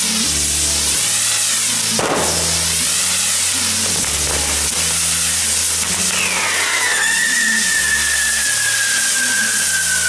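Mechanical ground fireworks burning: spinning spark wheels and fountains making a loud continuous hiss that swells and fades about once a second. A sharp bang comes about two seconds in, and about six seconds in a whistle starts, falls quickly in pitch, then holds and slowly sinks lower.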